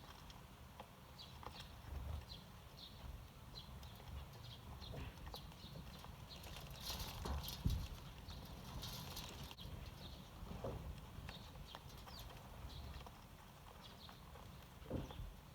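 Eurasian tree sparrows chirping, a string of short, sharp chirps at irregular intervals over a low background rumble, with a brief rustling noise about seven seconds in.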